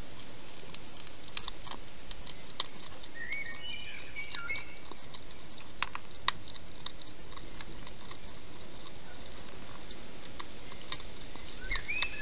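Wild hedgehog eating from a dish: scattered crunching clicks and small knocks, two of them sharper about a third and halfway through. A few short high chirps come in twice.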